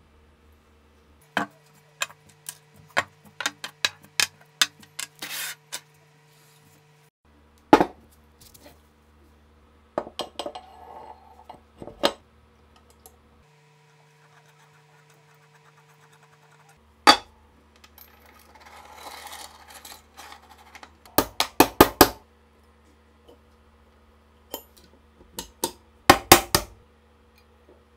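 Small steel parts of a STEN Mk2 submachine gun clicking and clinking as they are handled and fitted together, in several separate clusters of taps. A brief rubbing sound comes in the middle, and two quick runs of sharp metallic taps follow near the end.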